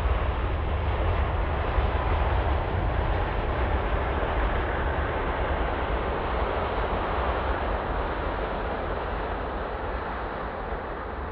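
Airbus A350 airliner rolling out on the runway just after touchdown: a steady rush of jet engine and airflow noise over a deep rumble, easing off gradually in the last few seconds as it slows.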